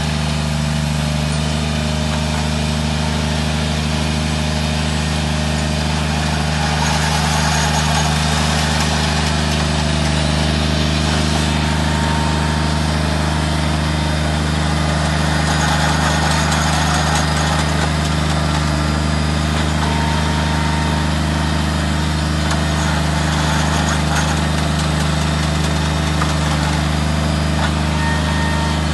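Ride-on deep drill aerator's engine running steadily at a constant speed, with no change in pitch.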